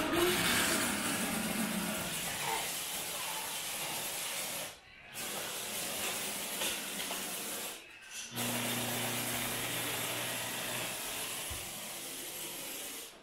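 Steam cleaner wand hissing as it jets steam over a stainless kitchen sink. The hiss is steady, breaks off briefly twice, about five and eight seconds in, and a low hum joins it in the second half.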